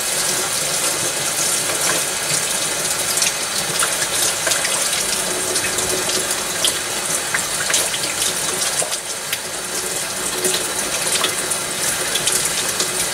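A steady watery rush with many small crackles and ticks scattered through it.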